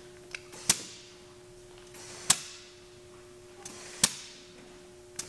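Compressed air hissing in short sharp bursts, about every second and a half, as a dial-gauge tire inflator on a shop air hose fills IHC helper air bags through their fill valve. A faint steady hum runs underneath.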